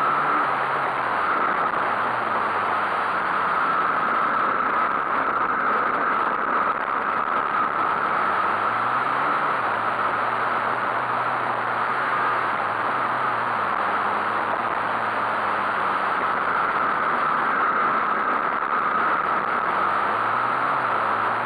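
Small dirt bike engine running under throttle on a motocross track, its pitch rising and falling several times as the rider accelerates and backs off, under a steady rushing noise from the ride.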